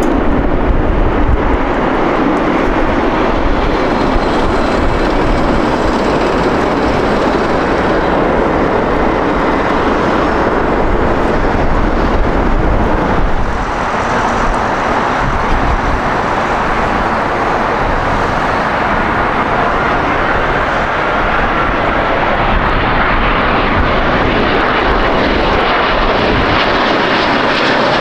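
Jet airliner passing close on the runway, its engines making a loud, steady noise that dips briefly about halfway through.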